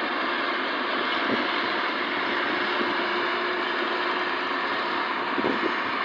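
Maxxi Bimo 102 rice combine harvester running steadily while it cuts and threshes rice, a constant machine drone with a faint steady hum.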